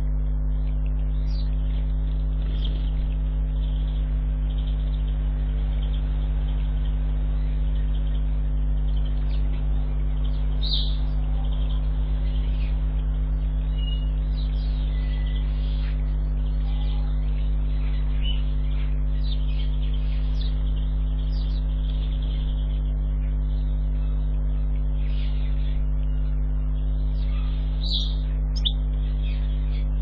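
A steady low electrical hum, with small garden birds chirping in short high calls now and then throughout, a few louder ones about eleven seconds in and near the end.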